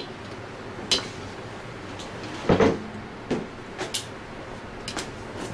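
Hex screws and an Allen key clicking and knocking against the metal housing of an Anest Iwata ISP250 scroll pump as the screws are fitted and tightened. A handful of scattered sharp strikes, the loudest a double knock about halfway through.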